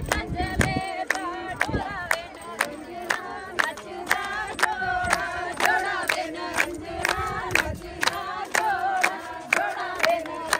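A group of voices singing Punjabi boliyan together over steady, rhythmic hand clapping, about two claps a second, as in giddha.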